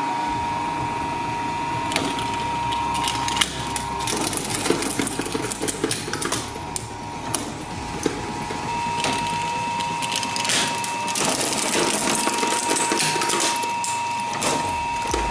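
Twin-shaft shredder running with a steady whine while its cutter blades crunch a toy car to pieces, in a rapid, uneven series of sharp cracks and snaps.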